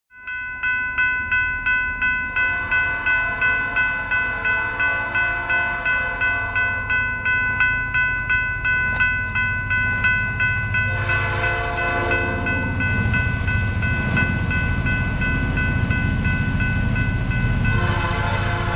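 An approaching diesel locomotive. A bell rings in a rapid, even rhythm throughout, and the engine's rumble grows louder as it nears. The horn sounds about eleven seconds in and again near the end.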